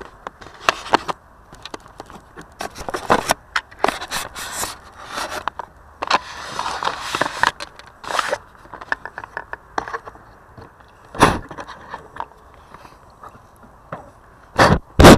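Crackling, scraping noise picked up by a quadcopter's onboard camera in flight, with no steady motor whine. A heavy knock comes about eleven seconds in and two more close together near the end.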